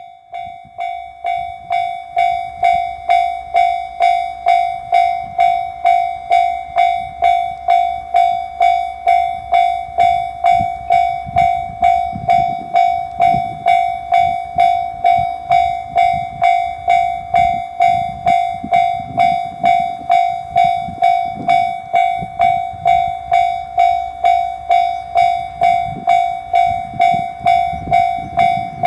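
Japanese railroad crossing warning bell starting up and ringing its steady "kan-kan" at about two strikes a second, swelling to full level over the first couple of seconds. A low rumble rises and falls underneath.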